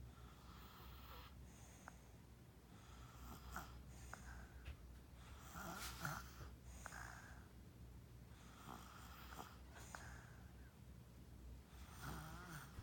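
A two-year-old child snoring faintly in sleep, a raspy snore on each breath about every three seconds.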